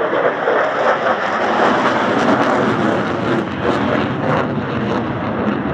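Steady aircraft engine noise, a dense continuous drone.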